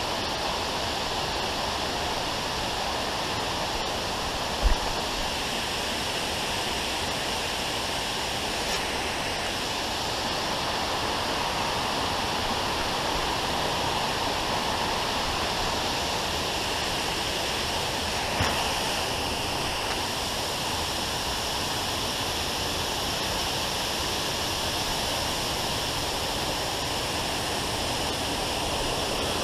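Waterfall's water falling steadily, a continuous rushing noise. There is a brief low bump about five seconds in, and a smaller knock later.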